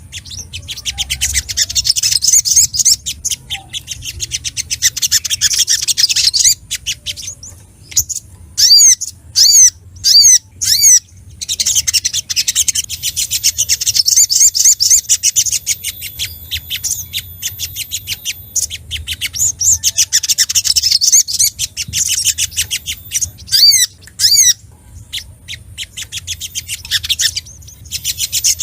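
Spiderhunter (sogok ontong) singing excitedly: long bouts of rapid, high chipping notes, broken by a few louder separate slurred calls about a third of the way in and again later.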